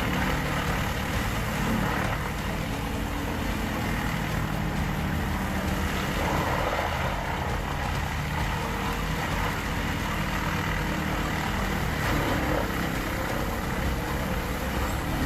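Large wood chipper's engine running steadily.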